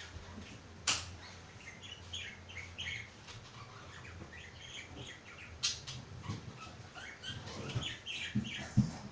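Small bird chirping in short, scattered calls, with a few sharp knocks in between.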